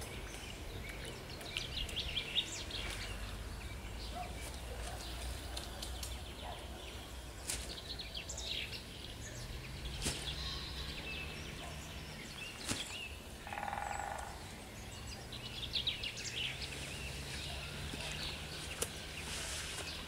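Small birds chirping and calling intermittently over a steady low outdoor background noise, with one longer, lower-pitched call about two-thirds of the way through.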